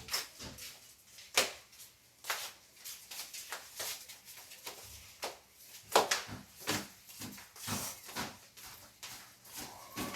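Irregular knocks and clicks, a dozen or so scattered strikes, the loudest about one and a half and six seconds in.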